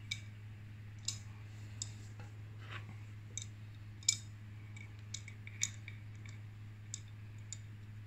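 Irregular sharp metallic clicks, about ten, from an adjustable spanner being handled and a cassette lockring tool being fitted into its jaws, over a steady low hum.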